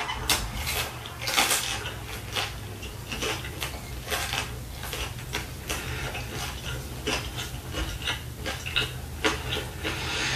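Close-miked chewing of a mouthful of fried shrimp egg roll: irregular crunches and wet mouth clicks, over a steady low hum.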